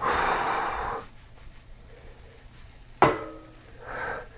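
A non-stick frying pan handled to flip a filled pancake: a loud rush of noise for about the first second, then about three seconds in a sharp metallic clank that rings briefly, and another clank near the end.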